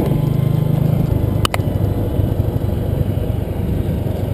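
A motor vehicle's engine running steadily, a low hum with road noise, with two sharp clicks about a second and a half in.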